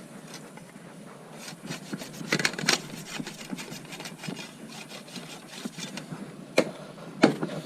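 Scraping and rubbing strokes inside a plastic furnace flue pipe as debris left by birds that blocked the exhaust is scraped out, with a few sharp knocks near the end.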